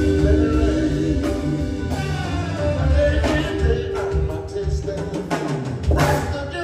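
Live soul band playing: a drum kit keeping a steady beat under held chords and some singing, with a sharp accented hit from the whole band about six seconds in as the singers flourish.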